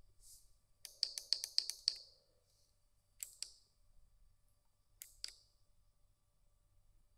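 Sharp clicks: a quick run of about six, then two single clicks a couple of seconds apart.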